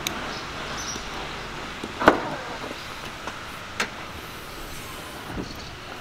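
Car rear hatch being opened: a sharp click about two seconds in as the latch lets go, then another knock nearly two seconds later, over a steady outdoor hum.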